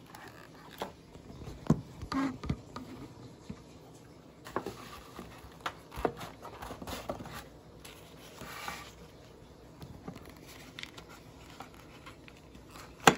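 Handling noise from unpacking a Kyosho Mini-Z: scattered light clicks and taps of plastic and a metal tin, a brief rustle a little past the middle, and one sharp knock near the end as something is set down on the wooden table.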